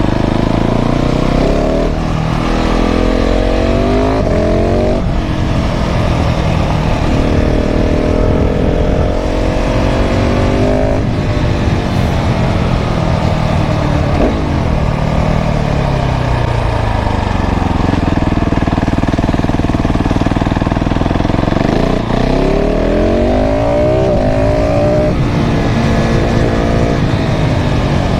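KTM 690 SMC R supermoto's single-cylinder engine through a full LeoVince exhaust, heard from onboard, pulling up through the gears with a shift every couple of seconds, then rolling off with the pitch falling for several seconds before it pulls hard again in the last few seconds.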